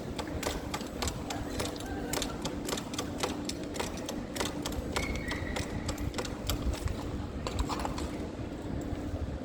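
City street sound: a dense, irregular stream of sharp clicks and taps over a steady low hum and rumble.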